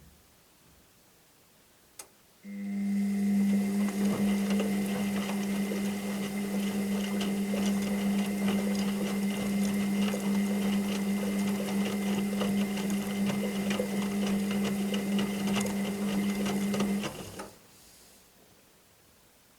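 Washing machine motor starts with a click, then runs with a steady hum and a high whine for about fifteen seconds before stopping.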